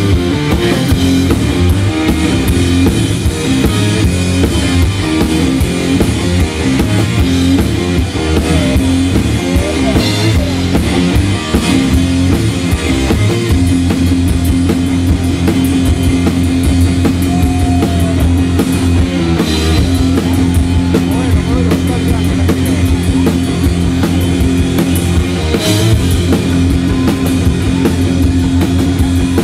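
Live rock music from a two-piece band: electric guitar played over a Ludwig drum kit with a steady bass drum beat.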